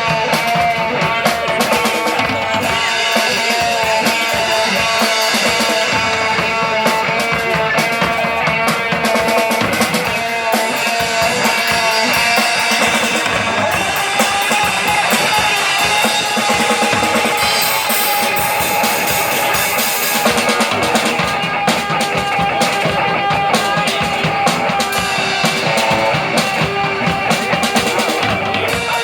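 A rock band playing live: guitar over a busy drum kit with bass drum, an instrumental passage with no singing.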